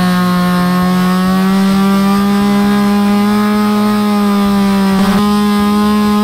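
STIHL MS180 chainsaw's 31.8 cc two-stroke engine held at full throttle while the chain cuts through a log, a loud steady buzz. It breaks off briefly about five seconds in and picks straight up again.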